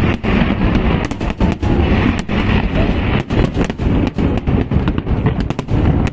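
Fireworks display: a dense barrage of overlapping bangs, several a second, over a continuous low rumble.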